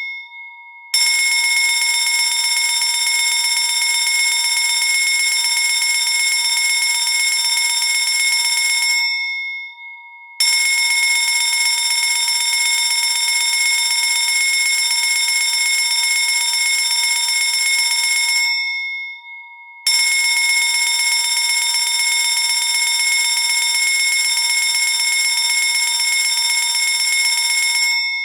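Electric fire alarm bell ringing loudly in long rings of about eight seconds, with pauses of about a second between them, each ring dying away briefly as it stops.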